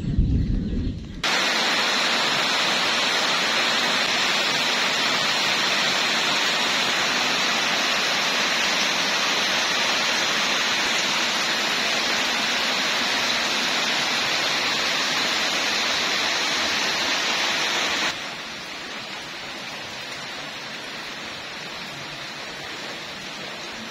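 Heavy rain falling, a steady loud hiss that sets in abruptly about a second in and drops suddenly to a quieter hiss about 18 seconds in.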